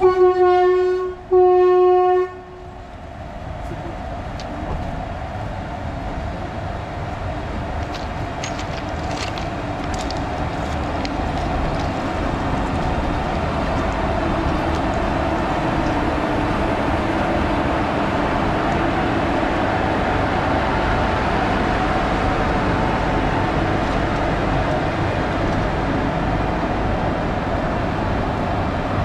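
Two short blasts of a WAG-7 electric locomotive's horn, then the steady hum and whine of a pair of WAG-7 locomotives' blowers and running gear, growing louder as they roll slowly past, with a few light clicks from the wheels.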